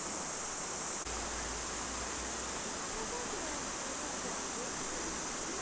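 Steady, high-pitched drone of a summer cicada chorus.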